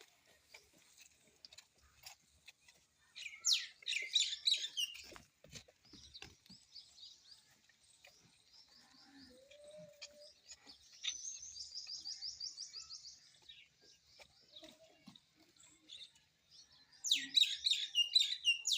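Small birds chirping continually, with a loud burst of song about three and a half seconds in and another near the end, and a rapid even trill in the middle.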